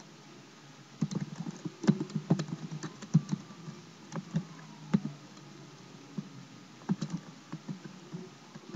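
Computer keyboard typing: irregular key clicks starting about a second in, with a pause of over a second partway through.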